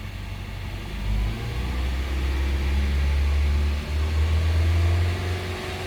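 Honda City's four-cylinder engine brought up to about 3000 rpm a second or two in and held there steadily, its pitch creeping slightly upward, during the throttle-body relearn after a valve adjustment and injector cleaning.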